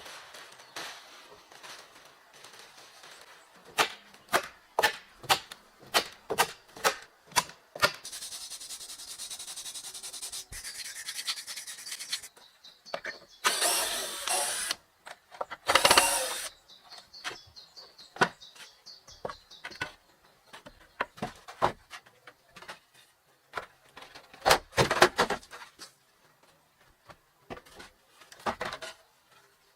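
Hand-tool work on wood: quick series of sharp knocks and taps, broken by stretches of scraping and rasping, with two louder noisy bursts about halfway through.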